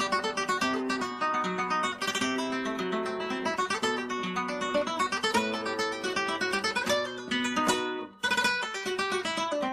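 Instrumental acoustic guitar music: quick plucked and strummed notes, with a brief break about eight seconds in.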